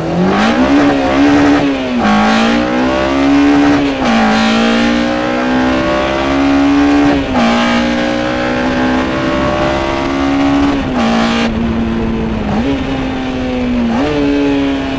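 Honda K20 four-cylinder on individual throttle bodies, heard from inside the DC2 Integra Type R's cabin under hard acceleration, with loud intake noise. The engine note climbs steeply at first, then rises under load and drops back about six times.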